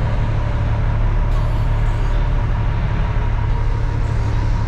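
Diesel engine of a Kenworth cement mixer truck running steadily with a low, even hum.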